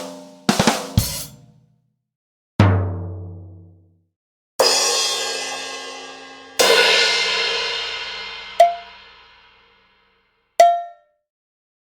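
A series of separate percussion one-shots: a few quick drum hits, then a single low drum hit that dies away. Two cymbal crashes follow, each ringing out for a couple of seconds, and then two short pitched metallic strikes.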